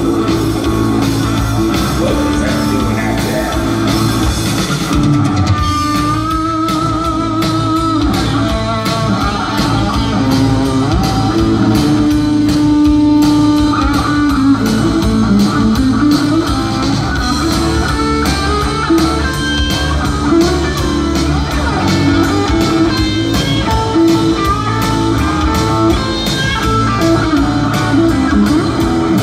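Live blues-rock band playing an instrumental passage: electric guitar lead with held, wavering notes over bass guitar and drum kit, loud and steady throughout.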